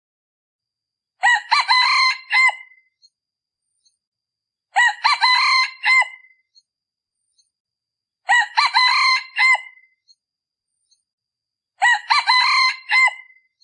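Decoy red junglefowl cock crowing, the call used to lure wild junglefowl. The crow comes four times at even intervals of about three and a half seconds, each one sounding alike, with silence in between.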